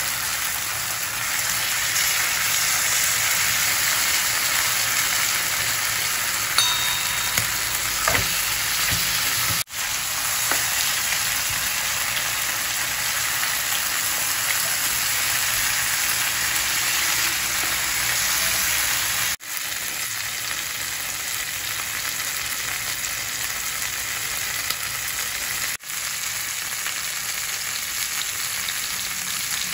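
Tandoori-marinated chicken pieces sizzling in hot fat in a ridged grill pan: a steady frying crackle. A few light clicks come about seven to eight seconds in, and the sound drops out for an instant three times.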